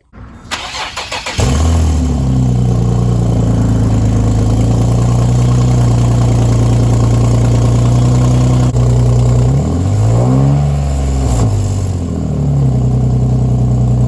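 Cold start of an Infiniti G37's 3.7-litre V6: the starter cranks for about a second before the engine catches and settles into a steady fast idle, with one rev that rises and falls about ten seconds in. The exhaust has a bad leak, which the owner says makes it sound really bad.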